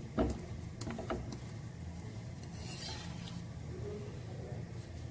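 Spatula pressing and rubbing flatbread on a hot tawa griddle, with a few light taps and scrapes in the first second or so. After that a faint low steady hum runs underneath.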